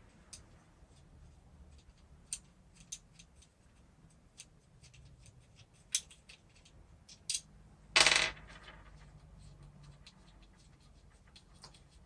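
Scattered light clicks and taps from small metal parts being handled, with one short, louder clatter about eight seconds in.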